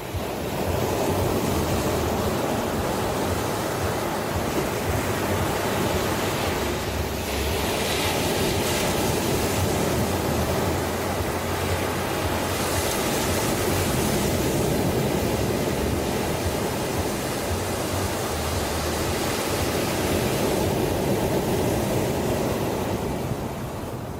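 Ocean surf: waves washing in a steady, dense rush, swelling slightly now and then.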